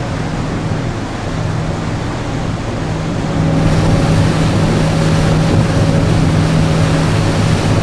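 Steady low drone of a car ferry's engines under water rushing past the hull and wind on the microphone, the rushing growing louder about three and a half seconds in.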